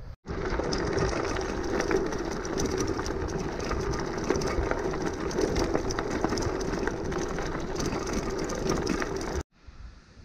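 A mountain bike rolling over a loose gravel track: tyres crunching on stones and the bike rattling steadily with many small clicks. It cuts off suddenly near the end.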